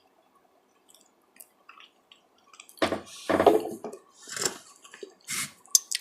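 Close-miked wet chewing and lip smacking: a few soft clicks, then a run of short, wet smacks starting about halfway through.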